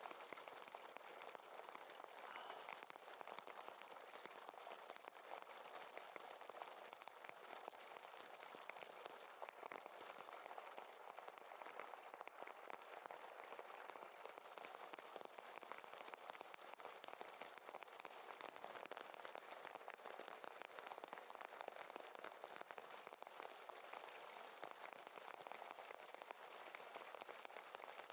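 Near silence: a faint, even crackling hiss with no distinct event.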